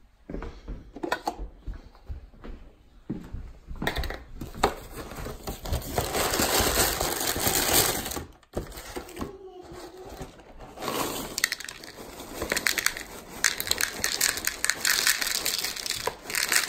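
A cardboard cereal box being torn open and its plastic inner bag crinkling and rustling, with Cheerios poured into a bowl near the end.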